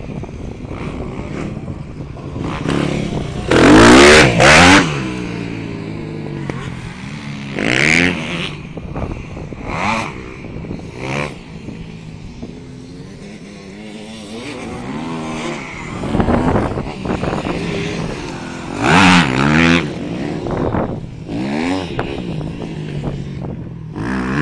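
Dirt bike engines revving up and down as the bikes ride the track. They pass close and run loudest about four seconds in and again around nineteen seconds.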